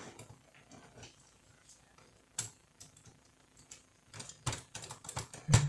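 Clicks and taps of metal and plastic parts of a Canon iR2016/iR2018 copier fuser unit being handled and worked apart by hand. A few scattered clicks at first, then a quick run of them in the last second and a half, the loudest just before the end.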